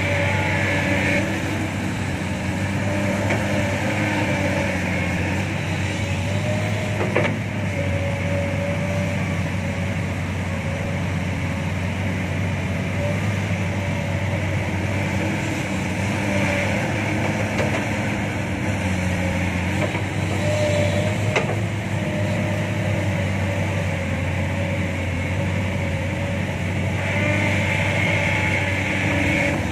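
Heavy diesel machinery running steadily, an excavator close by with dump trucks working: a low, even engine drone with a higher whine that comes and goes. Two sharp clicks, one about seven seconds in and another about twenty-one seconds in.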